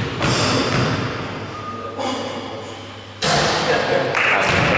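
A basketball bounced a few times on a wooden gym floor in the pre-shot dribbles at the free-throw line, each thud echoing in the hall. A steady hissy noise comes in near the end.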